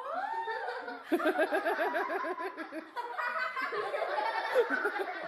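People laughing hard, with a run of quick, repeated ha-ha pulses starting about a second in.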